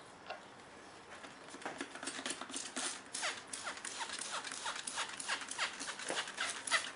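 Hand-held trigger spray bottle pumped over and over, a quick string of short squirts misting water onto model scenery. The squirts start about a second and a half in and come three or four a second.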